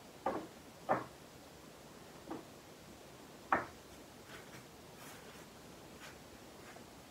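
A table knife cutting food on a plate and clinking against the dish: four short clinks in the first four seconds, then a few faint light taps.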